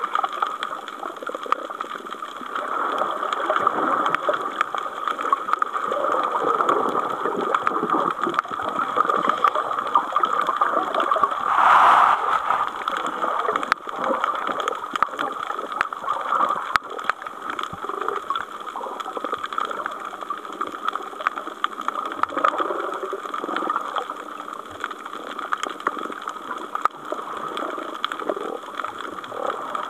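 Underwater ambience: a steady muffled hiss with fine crackling, swelling louder for about a second around twelve seconds in.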